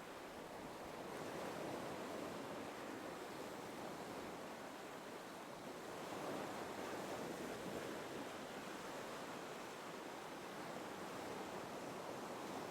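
Gentle ocean waves, soft and faint, washing in and receding in slow swells every few seconds.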